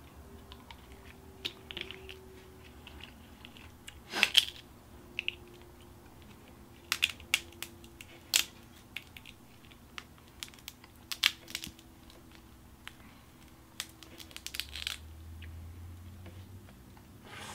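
Boiled snow crab leg shells being cracked and picked apart by hand: scattered sharp cracks and snaps with small clicks between them.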